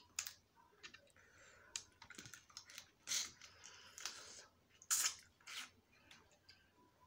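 Snow crab shell cracking and snapping as the meat is picked out by hand, mixed with chewing: an irregular run of sharp clicks and crackles, loudest about five seconds in.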